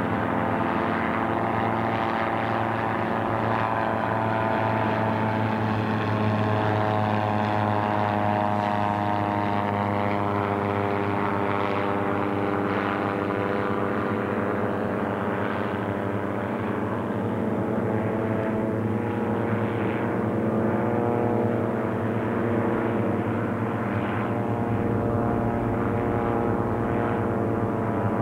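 Several Volkswagen air-cooled flat-four engined gyroplanes flying, most of them straight-piped, their engines and propellers droning together steadily. Their notes sit at slightly different pitches that slowly drift against each other.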